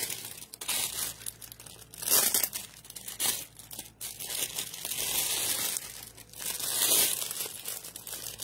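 Crinkly packaging being handled, rustling and crinkling in several bursts with short pauses between.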